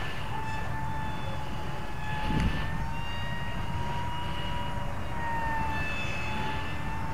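Electric motor and propeller of a small foam-board RC delta plane in flight, a steady whine that drifts slightly in pitch and dips near the end. Wind rumbles on the microphone, with a brief thump about two and a half seconds in.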